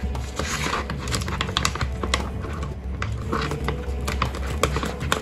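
Irregular light clicks and taps, like small containers and utensils being handled on a worktable, over a steady low hum.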